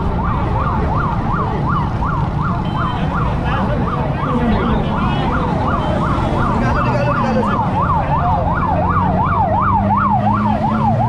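Vehicle siren in a fast yelp, its pitch sweeping up and down about three to four times a second, over a low steady hum.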